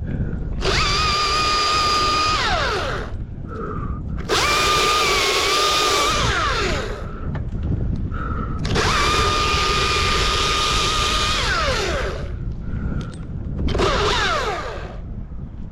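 Husqvarna chainsaw cutting at full throttle in four bursts of a few seconds each. Each burst ends with the pitch falling as the throttle is let off, and the saw idles quietly in between.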